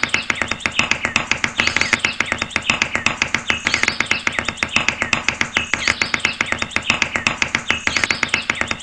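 A quick run of light taps from a small hammer driving thin wooden sticks into sand, with birds chirping over it. The tapping stops abruptly at the end.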